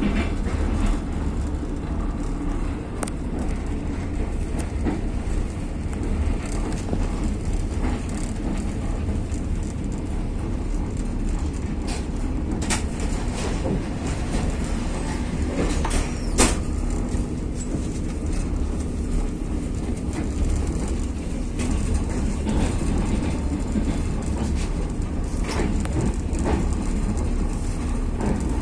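Passenger train carriage running along the line, heard from inside: a steady low rumble of the wheels on the rails, with scattered sharp clicks, the loudest about sixteen seconds in.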